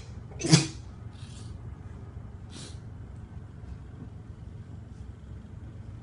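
A person sneezes loudly once, about half a second in, then sniffs twice more faintly, over a low steady hum.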